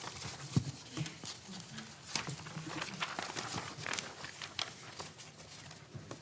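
Many scattered, irregular taps and clicks from a group of people in the room, all making the same small noise at once on cue; the taps thin out near the end.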